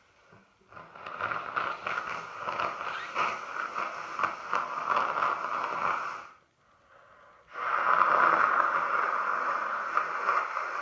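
A congested nose, stuffed up by a head cold, being blown hard twice: each blow a long, fluttering honk of about five seconds, with a brief pause between them.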